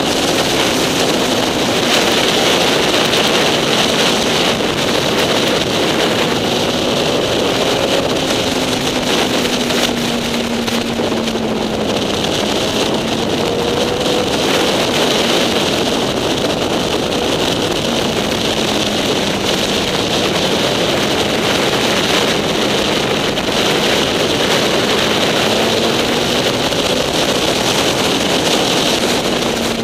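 Motorcycle engine running at road speed under a loud, steady rush of wind on the microphone, its note drifting slowly up and down with the throttle.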